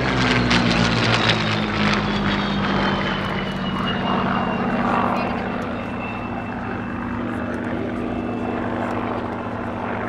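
Merlin-engined WWII piston fighters, a Buchon-built Bf 109 among them, flying past overhead: a steady engine drone with a high whine that falls in pitch as they pass. It is loudest in the first couple of seconds and eases off about six seconds in.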